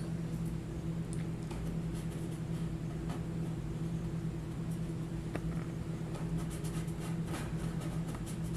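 A steady low hum fills the room, with faint, brief scratches of a small paintbrush working acrylic paint on canvas now and then.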